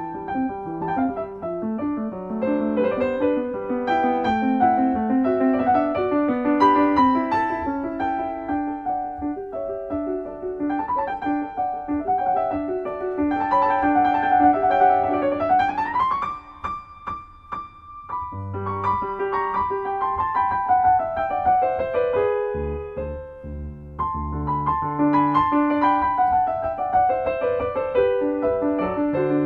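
Background piano music: a busy run of notes, with a rising sweep about halfway through and a short quieter lull after it.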